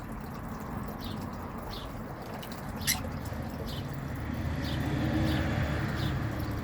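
A pet bird bathing in water: scattered small splashes and drips, with a steady low rumble that swells about four to six seconds in.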